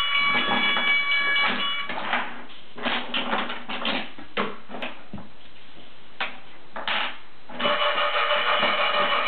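An electronic tune with steady held notes plays for about the first two seconds and comes back near the end, and in between there are scattered clicks and short clatters of toy pieces knocking on wooden train track.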